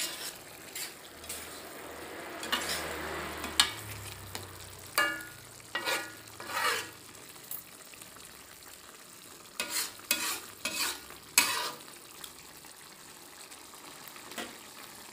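A metal spatula scraping and clinking against a wok as a saucy shrimp and vegetable stir-fry is stirred, in irregular strokes that thin out near the end, over a steady low sizzle.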